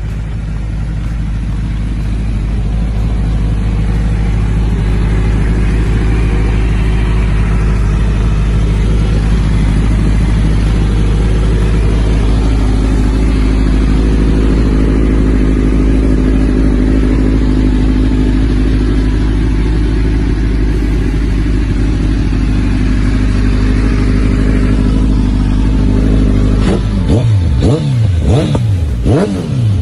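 Kawasaki Z1000's inline-four engine, fitted with an aftermarket exhaust and remapped ECU, idling steadily, then revved sharply a few times near the end, the pitch rising and falling with each blip.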